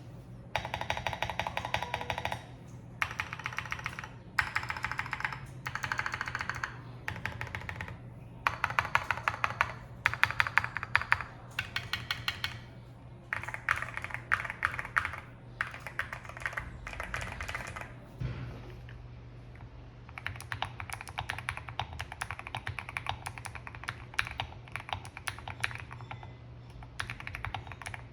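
Fast typing on a Monsgeek M1 custom mechanical keyboard with Akko switches and XDA-profile keycaps: rapid runs of keystroke clacks in bursts of a second or two with short pauses, turning into steadier continuous typing in the last third.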